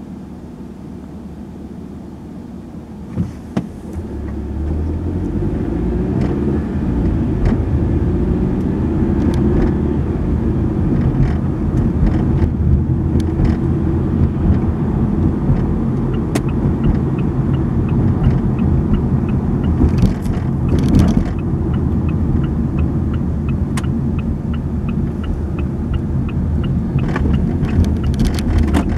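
Car cabin road noise: quiet for the first few seconds, with two sharp clicks a little after three seconds in, then engine and tyre rumble rising as the car pulls away and drives on. From about halfway through, the turn-signal indicator ticks steadily, about two ticks a second, for some twelve seconds as the car approaches and makes a turn.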